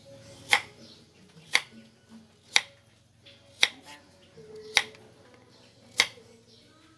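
Kitchen knife slicing through a firm vegetable and striking the cutting board, six sharp chops about a second apart.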